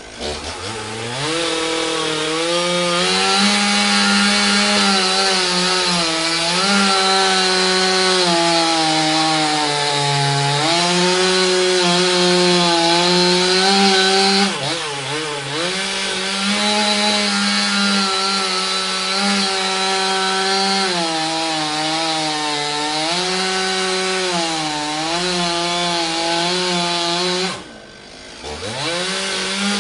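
Chainsaw running at high revs while cutting wood, its engine pitch sagging at times as the chain takes load. Near the start and again near the end the engine drops off briefly, then revs back up.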